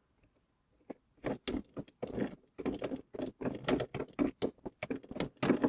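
Shift knob being twisted by hand counterclockwise off the threaded shifter lever: a quick run of irregular short clicks and rubbing scrapes.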